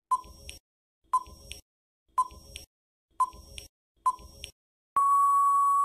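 Quiz countdown timer sound effect: five short beeps a second apart, then one longer steady beep near the end that marks time running out.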